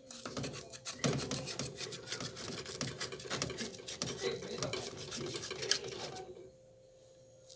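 Knife blade scraping around the inside wall of a metal ring pudim mold, loosening the baked pudim from the mold: a quick, dense run of scraping strokes that stops about six seconds in.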